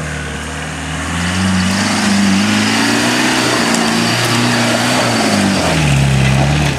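Land Rover engine revved hard under load in sawdust. Its note climbs about a second in, holds high with small rises and dips, falls near the end and then cuts off suddenly.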